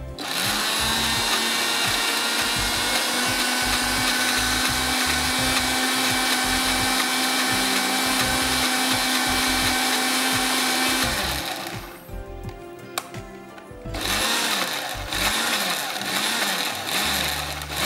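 Electric blender chopping herbs, garlic and olive oil into a coarse chimichurri sauce: it runs steadily for about eleven seconds and winds down, then after a short pause with a single knock it is run again in a series of short pulses.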